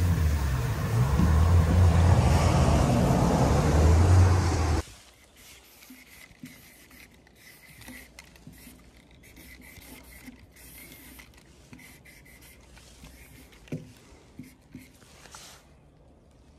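Background music for about the first five seconds, cutting off abruptly. After that comes the faint, uneven scratching and rubbing of a paint marker's tip dragged across a painted box, with light clicks.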